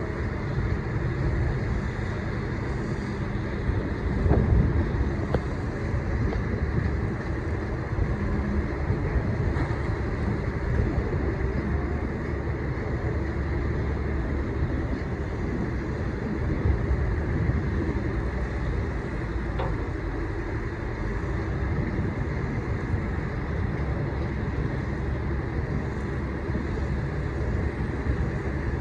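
Boat engine running steadily, with wind on the microphone.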